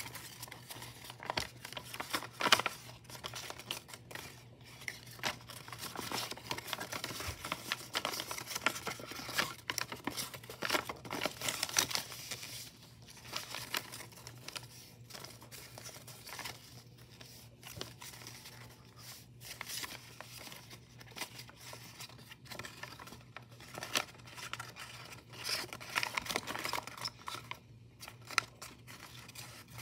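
A sheet of white paper being folded and creased by hand into an origami model: irregular rustling and crinkling with sharper crackles, the loudest about two and a half seconds in.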